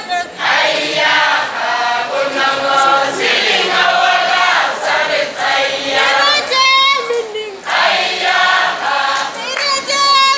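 Kalenjin traditional song: a group of voices singing together in chorus, with a single lead voice singing alone between the group's phrases, once about seven seconds in and again near the end.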